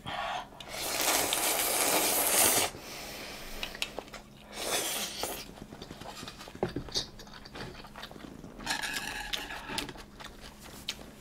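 Ramen being slurped three times in noisy, hissing draws, the first the longest at about two seconds. In between come light clicks of chopsticks and bowl, and chewing.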